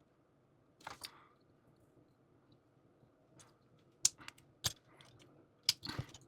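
Plastic parts of a Blokees snap-fit model kit clicking and snapping as they are handled and fitted together. There is a string of sharp clicks, most of them in the second half.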